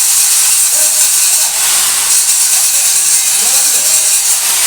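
TIG welding arc on a pipe root pass, hissing steadily and loudly.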